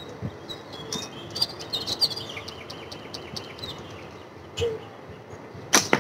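Birds chirping in the background, then near the end a single sharp snap as a slingshot with a TheraBand Gold flat band set, drawn to a half-butterfly stretch, is released and fires its shot.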